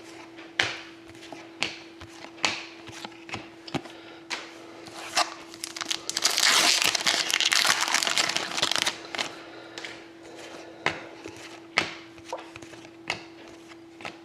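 Hockey trading cards being handled: sharp card clicks about once a second, and about three seconds of crinkling and tearing of a card-pack wrapper in the middle. A faint steady hum runs underneath.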